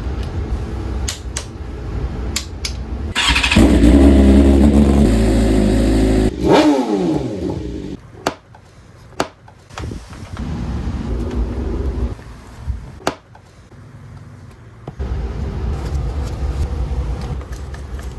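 2024 BMW S1000RR's inline-four engine running through a full Akrapovic titanium exhaust. It is revved hard about three seconds in and drops back sharply after a few seconds. It then runs at a lower level, with a few sharp clicks or pops.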